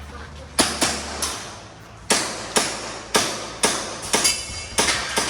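Airsoft pistol firing a string of about ten shots, mostly in quick pairs (IPSC-style double taps). Each shot is a sharp crack.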